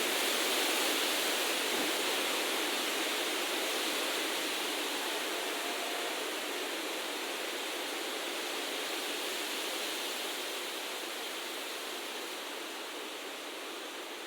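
Steady rushing noise with almost no low rumble, slowly fading toward the end.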